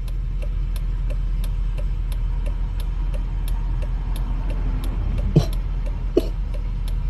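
Steady low rumble of a car moving slowly, heard from inside the cabin, with a faint regular ticking about three times a second. Two short sharp sounds come near the end, less than a second apart.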